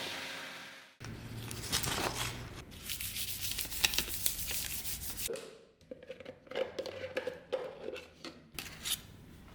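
Hand-work noises: several seconds of dense rubbing and scraping, then, after a sudden change, a series of scattered clicks and light knocks.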